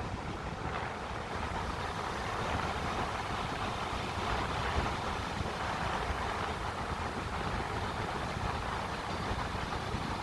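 Steady rushing noise with wind buffeting the microphone as a rough low rumble.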